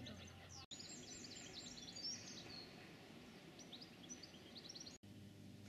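Small birds chirping and twittering faintly, in quick high chirps and short trills. Near the end, after an abrupt cut, a low steady hum takes over.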